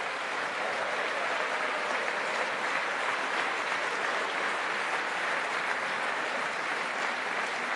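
A large audience applauding, steady and sustained.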